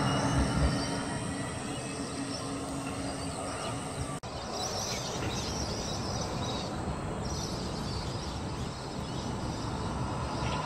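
A Bombardier Flexity 2 light-rail tram's electric drive hums and fades as it pulls away, with a steady low tone that dies out after about three seconds. After an abrupt cut, steady outdoor traffic ambience follows, with birds chirping.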